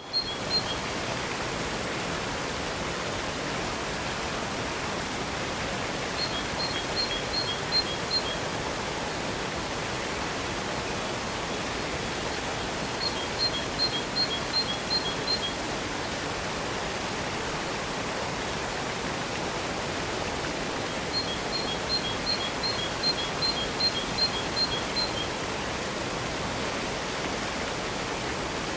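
Waterfall: steady rushing water with no changes. Four times, a run of short high chirps sounds over it, each run six to eleven notes long.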